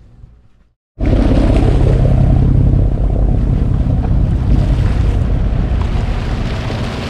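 Wind buffeting the microphone on a fishing boat's deck, over a steady low rumble of the boat's engine and the sea. It cuts in suddenly about a second in, after a moment of silence.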